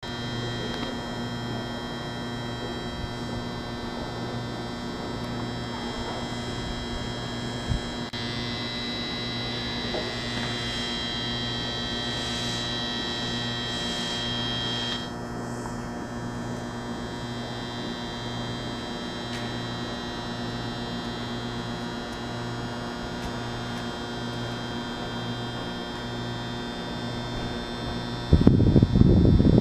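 Steady electrical hum with a pulsing low drone, from the auxiliary equipment of an electric train standing at the platform. A set of high whining tones joins it for several seconds and cuts off suddenly about halfway through. Near the end a loud low rumbling starts.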